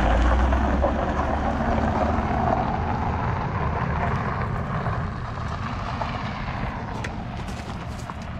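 Dodge Ram pickup truck driving off over a gravel driveway, its engine and tyres on the gravel slowly fading as it pulls away. Footsteps crunch on gravel near the end.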